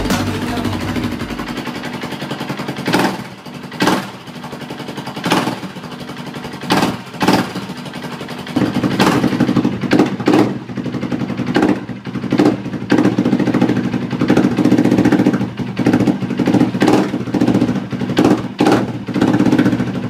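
KTM LC4 640 single-cylinder four-stroke engine running with a dozen or so short, sharp throttle blips, its note getting louder about eight seconds in. The engine is cold and will not take more throttle than these blips.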